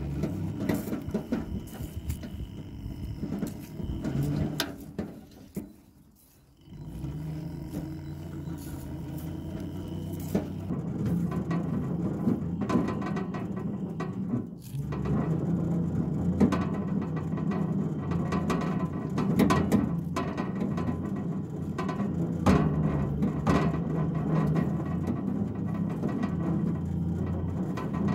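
Electric wheelbarrow's drive motor running with a steady hum as its lugged tyre turns on grass. It stops briefly about six seconds in, then runs again with a short drop near the middle.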